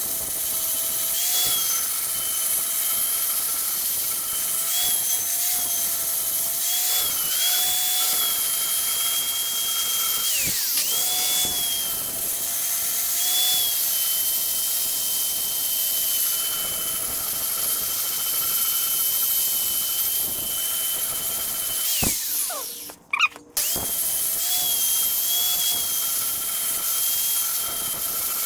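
Angle grinder with a flap disc grinding steel: a steady high whine whose pitch sags briefly each time the disc is pressed into the work. About 22 seconds in it winds down and cuts out for a moment, then starts again, and it stops at the end.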